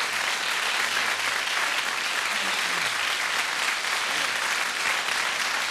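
Studio audience applauding steadily, a dense, unbroken clapping, with a few voices faintly heard beneath it.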